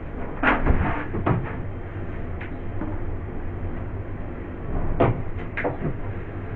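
Kitchen knocks and clatter, as of a door or shelf being handled, in two short clusters about four seconds apart, over a steady low background hum.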